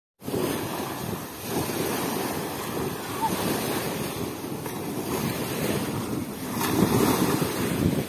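Small waves washing up onto a sandy beach, with wind buffeting the microphone. The wash surges and rises somewhat louder near the end.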